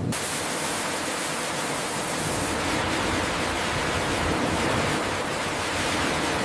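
Steady, even rushing noise from a potato chip production line.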